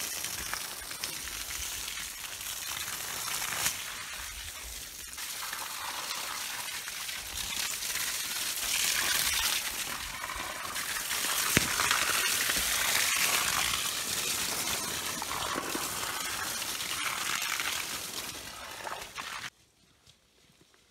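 Water from a garden hose splashing steadily onto vegetable plants and soil; it cuts off suddenly near the end.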